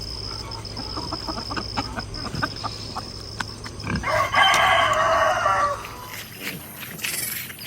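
A rooster crowing once, a loud call lasting nearly two seconds, about halfway through. Before it, scattered short clucks from chickens.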